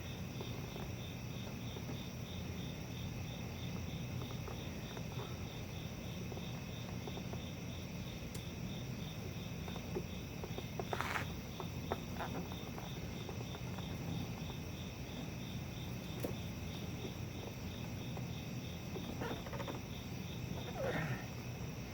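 Crickets chirping in a fast, even pulse over a steady low hum, with a few brief faint clinks and scrapes of hand tools partway through and near the end.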